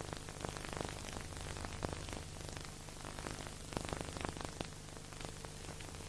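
Steady hiss full of irregular crackles and clicks over a low steady hum, with no music or voices.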